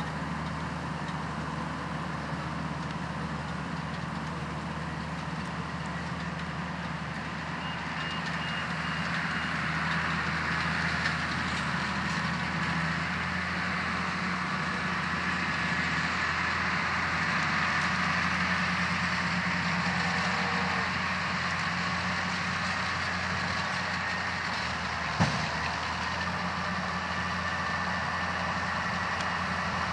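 Engine of heavy farm machinery running steadily, growing somewhat louder after about eight seconds. A single sharp knock comes near the end.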